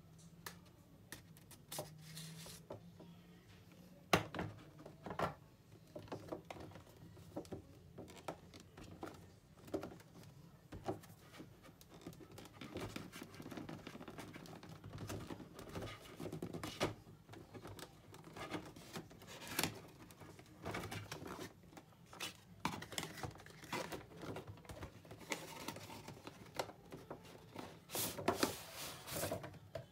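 Cardboard action-figure box being opened by hand: a blade slitting the tape seal, the end flap pried open and the inner tray slid out, in an irregular run of scrapes, rustles and small clicks. A sharp tap about four seconds in is the loudest sound.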